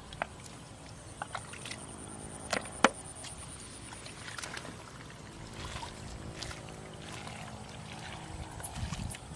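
Light splashing and dripping of water, with a sharp splash or knock a little under three seconds in. A thin steady high whine runs underneath and stops about halfway through.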